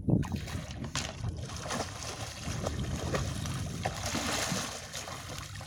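A hooked tuna splashing at the surface beside a fishing boat as it is hauled alongside, over steady wind and water noise, with a few short knocks on the deck.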